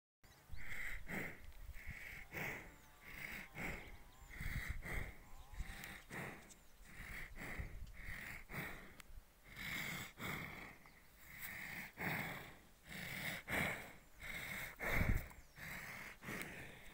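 Water buffalo snorting and sniffing close to the microphone, in short noisy breaths about once a second, with a few sharp clicks from handling.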